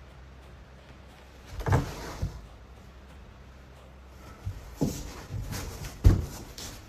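Several dull thumps and knocks in a wooden room, the loudest about six seconds in, over a steady low hum.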